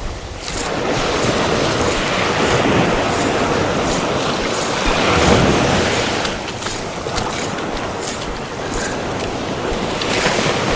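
Quick, rhythmic splashing of someone wading through shallow surf, about three splashes a second, over the steady wash of waves.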